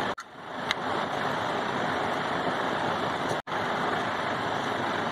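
A steady rushing noise with no clear source. It cuts out briefly twice, and there is one short click about three quarters of a second in.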